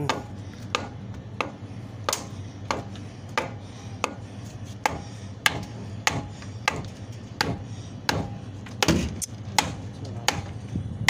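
Repeated hammer blows on an upright metal pipe, about one and a half strikes a second, sharp knocks at a fairly even pace, striking to knock loose the set cement inside it.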